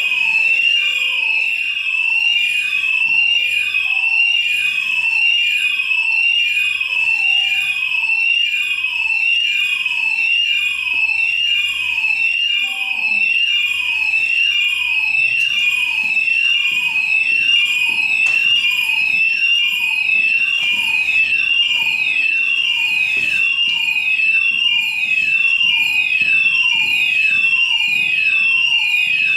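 Building fire alarm sounders of a fire alarm system sounding the evacuation signal: a loud, high electronic tone pulsing with quick falling sweeps, repeating evenly about one and a half times a second without a break.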